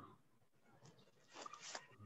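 Near silence: faint room tone, with a faint, brief cluster of sounds about one and a half seconds in.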